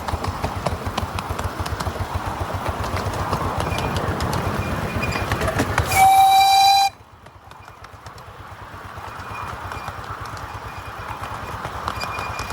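Miniature railway train running with a fast low rhythmic beat. About six seconds in comes a single short whistle blast, a steady high tone just under a second long. The running noise then drops away and builds back up.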